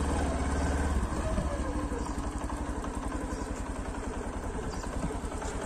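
Motorcycle engine running as the bike is brought to a stop. The low rumble drops about a second in, and the engine settles to an even idle.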